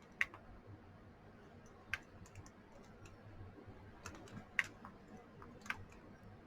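Faint, irregular clicks and taps of small plastic miniature pieces being handled, with a few sharper clicks scattered through.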